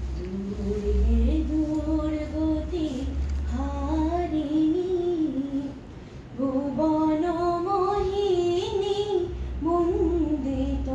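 A woman singing solo and unaccompanied, a slow melody of long held notes that glide between pitches, with a short breath pause about six seconds in.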